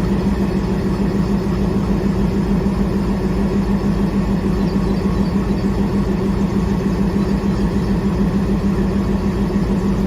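ALCO diesel locomotive engine running steadily with an even low throb, no brake screech heard.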